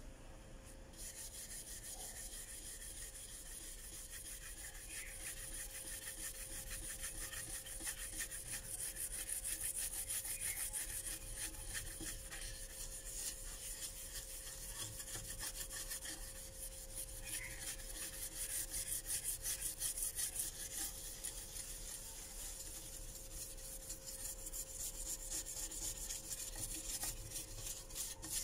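Hand rubbing the embossed brass of a wall hanging with rapid back-and-forth strokes, a steady scratchy hiss that starts about a second in.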